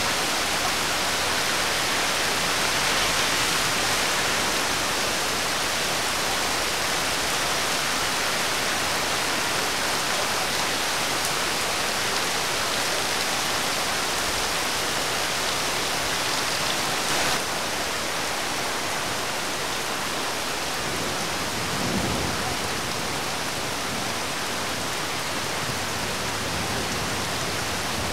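Steady rain falling, an even hiss throughout, with a brief low thud about 22 seconds in.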